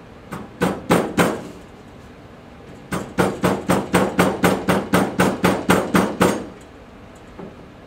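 Rubber mallet striking the end of a wooden paint stirrer, driving a sling's retainer cord into the channel of a metal chair frame. Four blows, a short pause, then a quick run of about fourteen even blows at about four a second.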